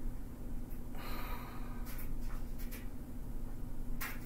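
A person breathing out once about a second in, followed by a few soft clicks, over a steady low electrical hum.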